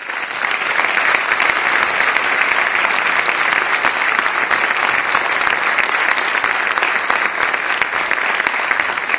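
Theatre audience applauding: a loud, dense, steady clapping.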